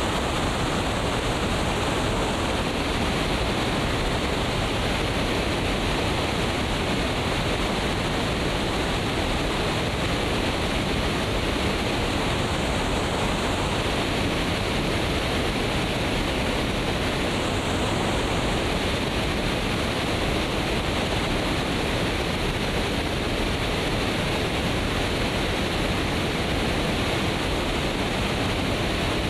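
Steady, unbroken rush of fast-flowing water, like a stream or small waterfall close by.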